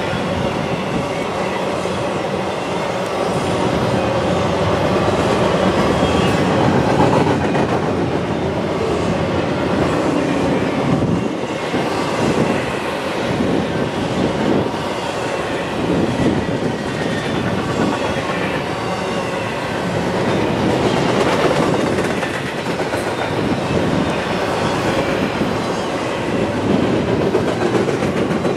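Norfolk Southern intermodal freight train rolling past, with the steady rumble and clatter of steel wheels on the rails as trailer flatcars and double-stack container cars go by.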